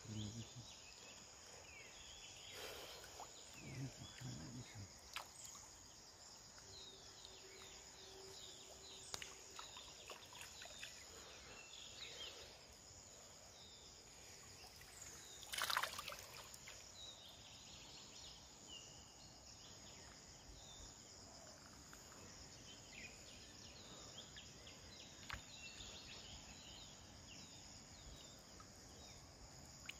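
Quiet riverside ambience: a steady high insect drone with scattered short bird chirps, a few soft low thumps near the start, and one short splash of water about halfway through as the gill net is hauled.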